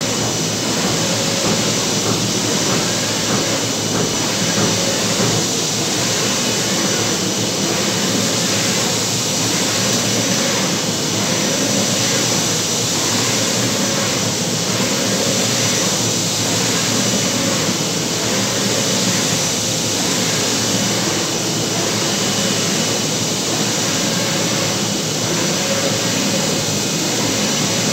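UV flatbed printer running: a steady whir of fans and motors, with a faint sweep repeating about every two seconds as the print carriage shuttles back and forth across the bed.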